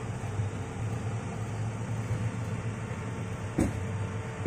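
Off-road 4x4 engines idling steadily, a low hum with a constant tone above it. There is one brief knock about three and a half seconds in.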